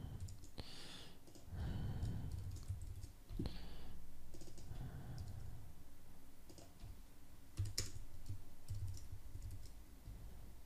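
Computer keyboard typing: irregular, scattered keystrokes and clicks with short pauses between them.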